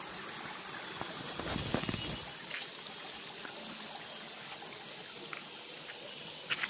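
Shallow river water trickling and flowing steadily, with a few faint knocks and a slightly louder stir of water between about one and two seconds in. A thin, steady high whine sits over it.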